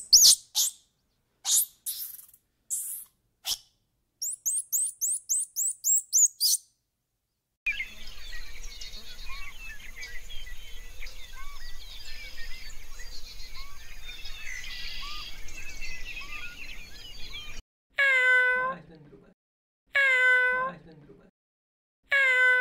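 A sequence of animal calls: first a few sharp high chirps, then a quick run of about nine chirps. After a short gap comes a dense chorus of many small calls. Near the end, three long pitched calls follow about two seconds apart.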